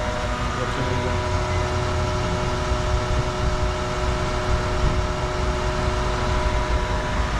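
Gilbarco Veeder-Root diesel dispenser pumping fuel into a vehicle's tank: a steady hum of the pump motor with fuel rushing through the hose and nozzle, several steady whining tones over a low rumble.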